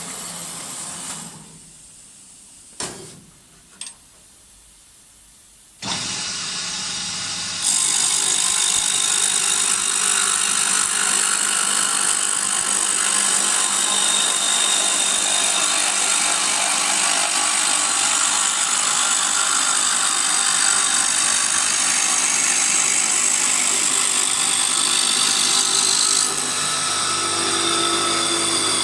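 Automatic wood-turning lathe: a quieter stretch with a couple of clicks, then the machine starts up about six seconds in and steps up to a loud, steady run as it cuts a wooden blank, with a slight change in tone near the end.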